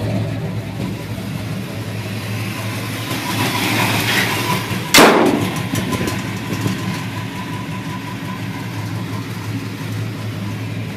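Ford F-100 pickup's 390 big-block V8 idling steadily, with a single sharp bang about five seconds in.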